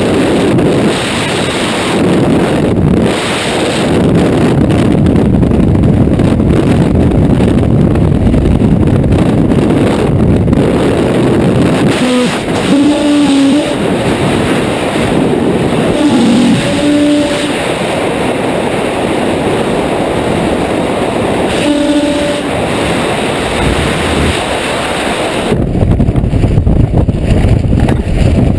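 Freefall wind rushing and buffeting over a skydiver's camera microphone, loud and steady. Near the end the sound changes to a lower, choppier rumble as the parachute opens.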